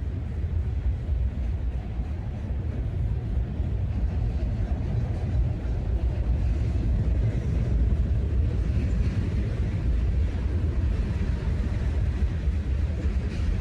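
CSX freight train rolling past on the tracks, a steady low rumble that grows slightly louder in the second half.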